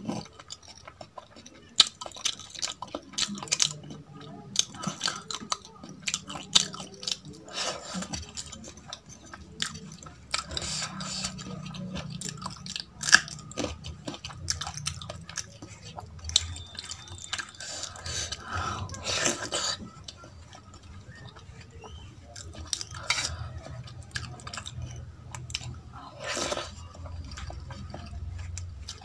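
Fingers mixing rice and kadhi on a steel plate: wet squishing, with the fingertips scraping and clicking against the metal, and chewing in between.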